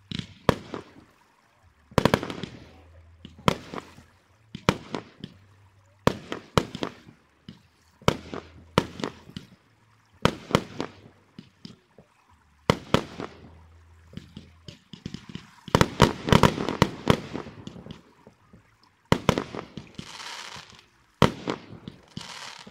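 Fireworks display: aerial shells bursting one after another, roughly a bang a second, with a dense rapid string of reports about two-thirds of the way through and crackling near the end.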